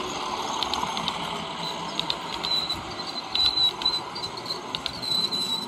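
OO gauge model train, a diesel locomotive hauling flat wagons, running past on the track, its wheels clicking irregularly over rail joints over a steady running hiss, with a thin high squeal coming and going.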